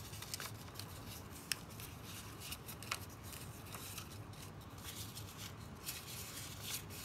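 Faint rustling and rubbing of a strip of construction paper as fingers roll it into a tight tube, with a few soft ticks.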